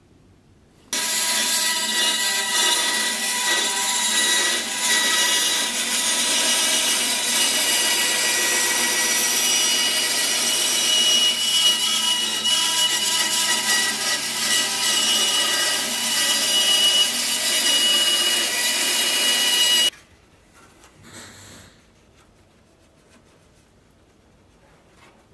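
Band saw ripping a thin wooden strip, a steady loud whir with a few steady tones in it. It starts suddenly about a second in and cuts off suddenly near the end.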